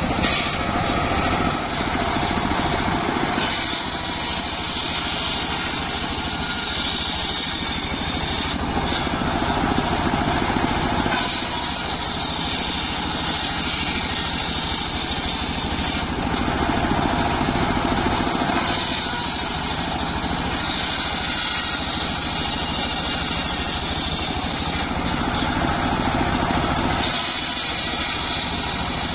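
Bench circular saw ripping a mahogany log into planks: the running saw with a high cutting whine that comes and goes four times as the blade bites into the wood.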